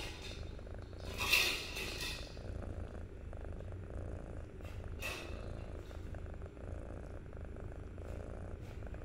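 A nine-week-old kitten purring steadily while being stroked, with a brief louder rustle about a second in and a fainter one near five seconds.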